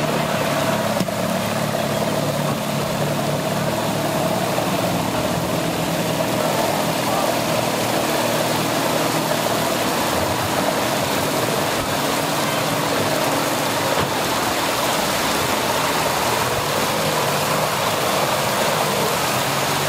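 Heavy rain falling steadily, with a Stingray bowrider's engine running at low speed underneath.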